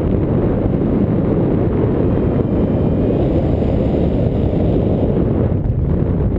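Wind noise from the airflow of paraglider flight buffeting the camera's microphone: a steady, loud low rumble.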